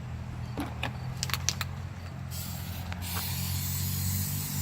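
Flex Seal aerosol spray can hissing as the coating is sprayed. It stops briefly, with a few light clicks, and the spray resumes about three seconds in, over a steady low hum.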